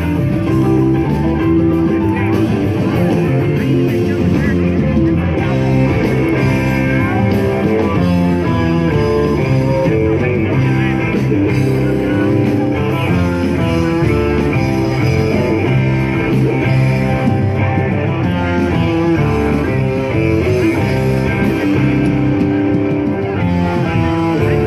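Rock music with guitar, playing steadily and loudly.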